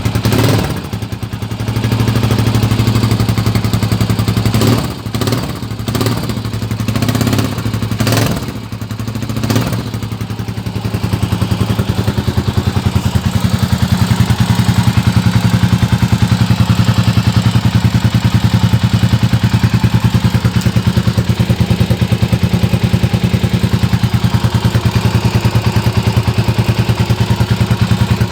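Motorstar Cafe 400 motorcycle engine blipped through several throttle revs in the first ten seconds, rising and dropping each time. It then settles into a steady, even idle for the rest.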